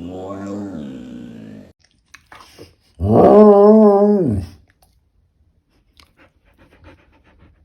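A dog giving two drawn-out, howl-like 'talking' vocalizations: a lower one at the start, then a louder, higher one with a wavering pitch about three seconds in. Faint soft clicks follow near the end.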